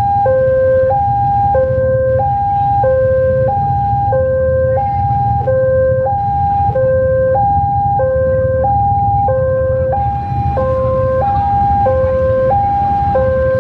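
Railway level-crossing warning alarm sounding continuously. It is a two-tone electronic alarm that swaps between a low and a high tone about every two-thirds of a second, with the low rumble of the approaching diesel locomotive beneath it.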